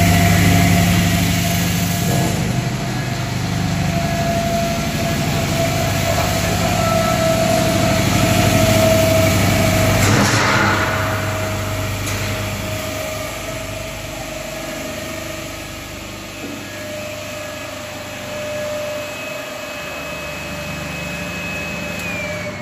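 Poultry scalding machine running on a commissioning test: a steady motor-and-drive hum with a thin whine above it. A brief hiss comes about ten seconds in, and the whine starts falling in pitch near the end.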